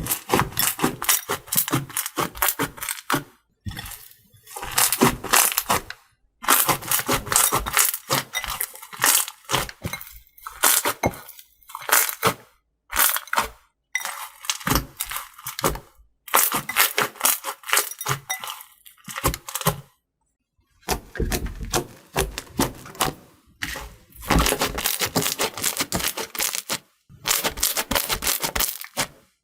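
Slime being squeezed and worked by hand, giving dense runs of crackling clicks and pops in bursts of a few seconds, with short pauses between them.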